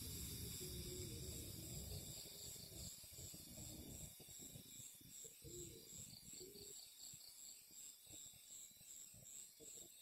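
Night insects, crickets or similar, chirping faintly in a high, even pulse about three times a second. Under it a low rumble dies away about four seconds in.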